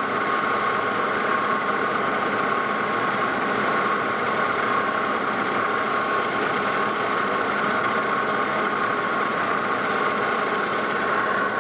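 Metal lathe running steadily while turning a metal disk, with a steady whine over the machine noise.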